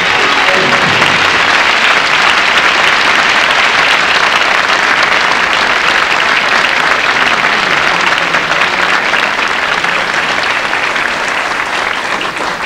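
A large studio audience applauding, the clapping dying away near the end.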